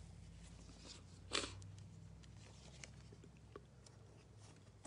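Faint handling of trading cards and clear plastic sleeves: one brief plastic crinkle about a second in, then scattered light ticks and rustles over a steady low hum.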